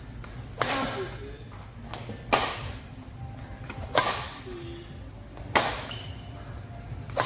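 Badminton racket strings smacking a shuttlecock in a rally of high clears: five sharp cracks, evenly spaced about every one and a half seconds, each ringing briefly in the hall.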